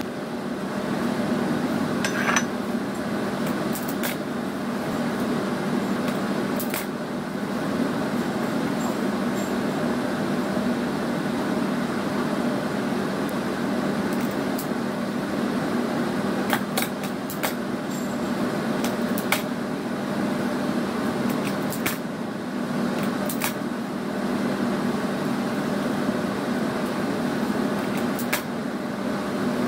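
Steady machine hum in a small room, with scattered light clicks and snips from scissors trimming plant stems on a worktable.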